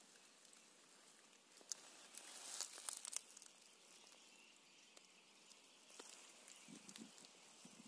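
Near silence, with a few faint scattered crackles and rustles and some soft low thumps near the end.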